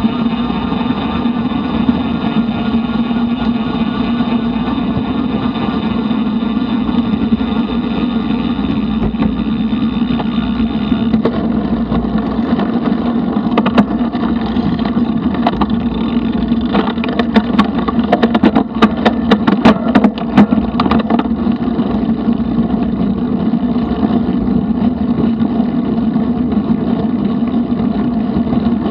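Bicycle riding on a paved trail: a steady rush of tyre and wind noise at the bike-mounted action camera. A run of sharp knocks or rattles comes about two-thirds of the way through.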